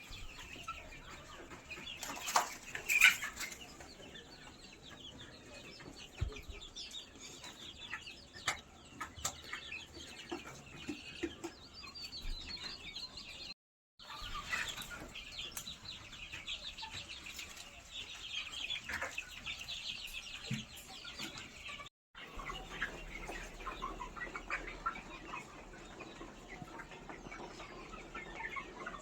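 A flock of free-range Black Australorp and Kadaknath chickens clucking, with many short high calls overlapping and a few louder calls about two to three seconds in. The sound drops out briefly twice.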